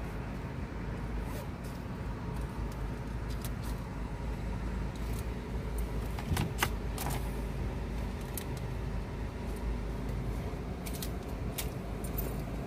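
Loose coins clinking and jingling in the hand as they are counted, in scattered clicks that are loudest about six to seven seconds in, over the steady low rumble of a car cabin.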